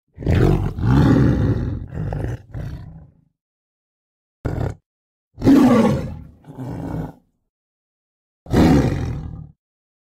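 A big cat roaring in four bursts, the first and longest about three seconds, a short one near the middle, and two more after it. Each burst cuts off into dead silence, the mark of roar sound effects edited in one after another.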